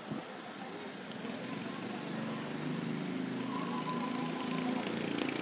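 A motor vehicle's engine drawing near, growing louder from about two seconds in and loudest near the end, over a steady background hiss.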